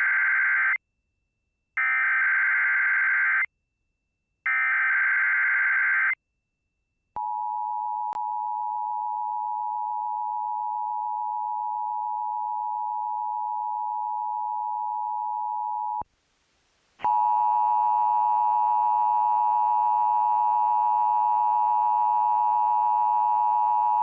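EAS alert from a Sage ENDEC: three screeching bursts of SAME header data, the first already under way, each about two seconds long with short gaps. Then the steady two-tone EAS attention signal is held for about nine seconds. After a one-second pause a harsher, buzzy tone with many overtones starts and keeps sounding.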